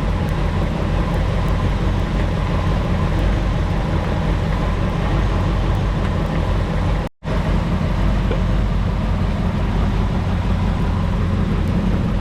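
The 1967 Ford Thunderbird's 390 FE V8 idling steadily after a tune-up, broken by a brief dropout about seven seconds in.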